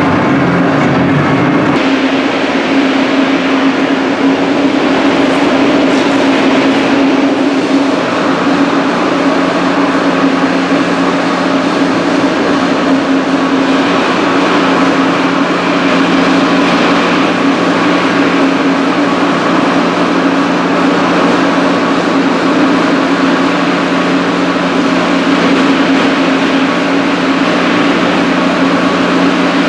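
Steady roar of a powder coating booth's extraction fans with a constant hum, mixed with the hiss of air from an electrostatic powder spray gun as powder is sprayed onto steel parts.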